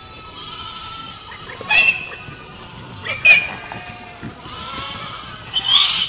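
A herd of goats bleating: fainter bleats in the background, with sharp, loud bleats about two seconds in, about three seconds in and again near the end.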